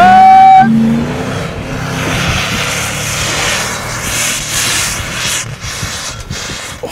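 4x4 SUV engine revving hard as it ploughs through deep snow past the microphone and pulls away, its sound fading as it goes. A brief, loud, high tone sounds right at the start.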